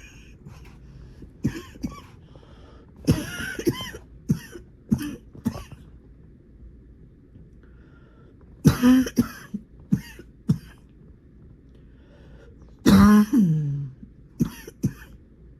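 A person having a coughing fit: clusters of short, harsh coughs in several bouts with brief pauses between them. The longest cough comes about thirteen seconds in and falls in pitch as it ends.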